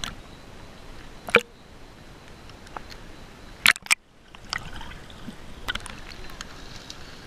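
Water sloshing and gurgling around a waterproof camera bobbing at the surface. Sharp splashy slaps come as it breaks the surface: one at the start, one about a second and a half in, and two close together near four seconds.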